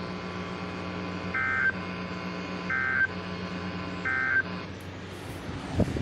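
Weather radio receiver sounding three short bursts of EAS SAME digital header data, about a second apart, over a steady low hum: the coded header that opens a Severe Thunderstorm Warning. A thump comes near the end.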